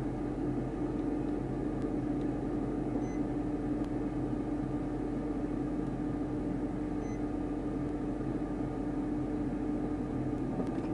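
Steady hum and hiss of a stationary police patrol car idling, with a low steady tone that stops about ten seconds in.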